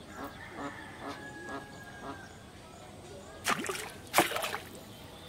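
Ducks quacking in a quick series of short calls, then two sudden loud sounds a little over half a second apart, near the end; the second is the loudest.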